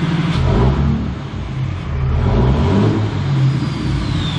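5.9 L common-rail Cummins inline-six turbodiesel revved up from idle about half a second in, the engine note rising and falling, with a faint falling whistle near the end. It is running on freshly fitted injectors just after its fuel system was bled.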